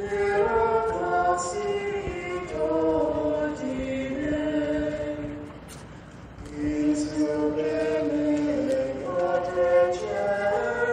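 Group of voices singing a slow hymn in long held notes, in two phrases with a brief pause about halfway through.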